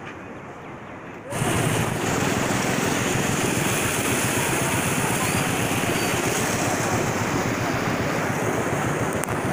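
Fast, swollen floodwater rushing and churning close by: a loud, steady roar of turbulent water that starts abruptly about a second in, after a quieter stretch.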